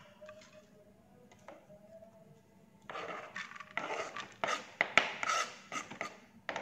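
A knife blade scraping chopped spring onion and celery leaves off a plastic cutting board into a frying pan. It comes as a quick run of short scraping strokes that start about three seconds in.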